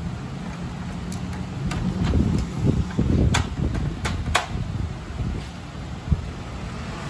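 Hands working the plastic carriage and ink-tube fittings of a Canon iP2870s inkjet printer: several short, sharp plastic clicks and taps in the first half, then a single low knock, over a steady low background rumble.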